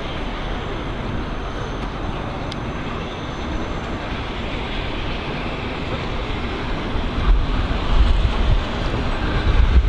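Peppercorn A1 Pacific steam locomotive 60163 Tornado working a train toward the listener, a steady rush of locomotive and rail noise. Wind buffets the microphone with low rumbles in the last few seconds.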